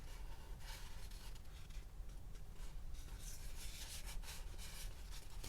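Faint rubbing and scratching of a rubbery plastic waterproof pistol bag being handled, soft and irregular.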